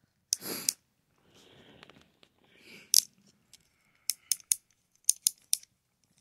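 Handling noise from a wooden toy crane engine: a brief rustle, soft scraping, then sharp little clicks, a single one and then a quick run of six near the end, as fingers work its crane arm and parts.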